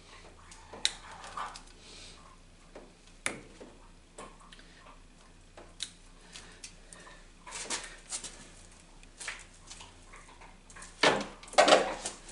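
Scattered light clicks, taps and rustles of hands handling wires and parts at the snowplow pump's solenoids, with a louder burst of rustling and clatter near the end.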